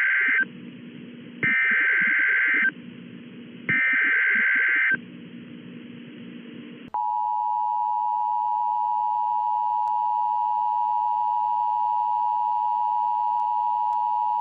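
Emergency Alert System tones through a TV speaker. Buzzy data-header bursts of about a second each repeat three times. Then, about seven seconds in, the steady two-tone attention signal starts and holds, announcing a National Weather Service severe thunderstorm warning.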